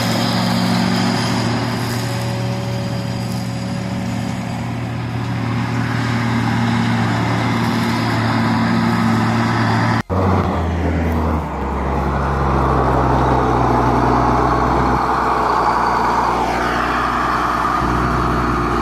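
Case IH Magnum 7210 tractor's six-cylinder diesel engine running steadily while it pulls a large square baler through straw. About ten seconds in, the sound cuts abruptly to a closer, deeper engine note as the tractor drives past on a track, its pitch shifting briefly twice.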